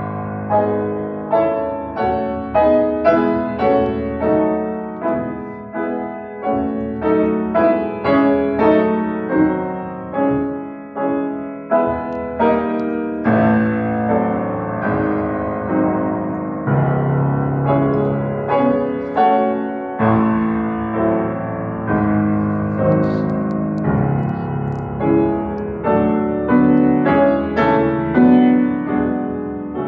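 C. Bechstein grand piano played in a sound test: chords and a melody struck at a steady, moderate pace, each note ringing and fading before the next.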